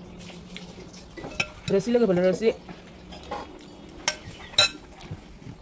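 Metal serving spoon scraping and clinking against a glass bowl and a ceramic plate while food is scooped, with a few sharp clinks, two of them late on. A short hummed vocal sound comes about two seconds in.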